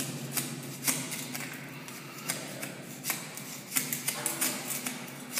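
Small metal scraper blade scratching white paint off concrete in short, irregular strokes, heard as sharp scrapes and clicks.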